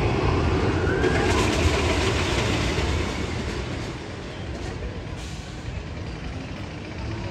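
Roller coaster train rumbling along its track, loud at first and fading about three seconds in.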